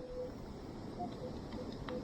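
Minelab Equinox 800 metal detector giving short, mid-pitched target beeps as the coil is swept over a buried target reading 12–13, about five in quick succession with one a little higher, over a low steady background rumble.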